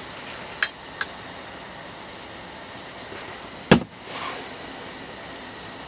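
Two light glass clinks from a soju bottle and shot glass as a drink is poured, then one sharp knock as the glass bottle is set down on a hard plastic box lid near the end, the loudest sound here. A steady low hiss runs underneath.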